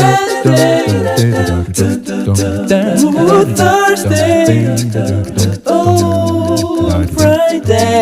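Background music: a song with a sung melody over a steady low beat.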